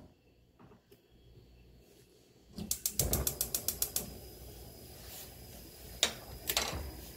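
Gas stove's electric igniter clicking rapidly for over a second, then the burner lighting and running with a steady hiss of flame; a couple of sharp knocks near the end.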